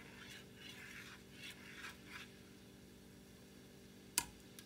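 Metal coil whisk stirring broth and cornstarch for gravy in a saucepan: a few soft scraping strokes in the first couple of seconds, then a lull. A single sharp click comes a little after four seconds, over a steady low hum.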